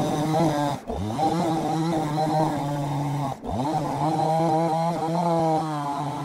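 A motor or engine running at a steady pitch, with two brief dips after which the pitch climbs back up, about a second in and again past the three-second mark.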